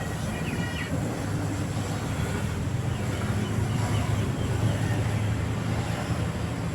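Bus diesel engine running with a steady low drone that grows a little louder in the middle.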